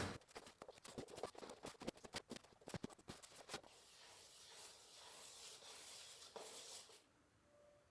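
Light wood-working handling sounds: a quick run of small clicks and knocks, then a steady scraping hiss for about three seconds that stops near the end.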